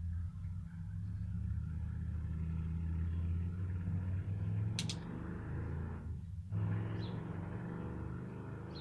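A motor vehicle's engine running nearby: a steady low rumble that briefly drops away about six seconds in. A sharp double click comes about five seconds in.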